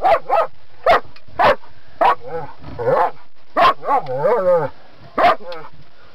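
German Shepherd barking excitedly at a live crab on the deck: a string of short, sharp barks, roughly one every half second, broken about four seconds in by a longer, wavering, high-pitched yelping cry.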